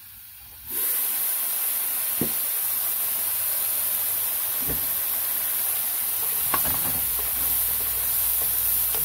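Pork and vegetables sizzling in a pot: a steady hiss that starts abruptly under a second in. Three light knocks of a wooden spoon against the pot are heard as it is stirred.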